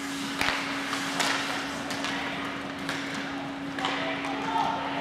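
A handful of irregular knocks and clatters, about five in all, over a steady hum.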